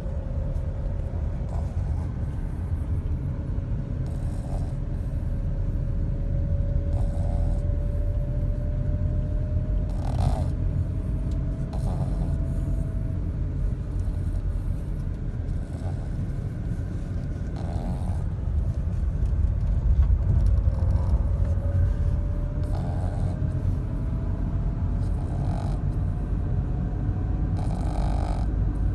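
French bulldog snoring: a steady low rumble with a short, louder rasping breath every few seconds.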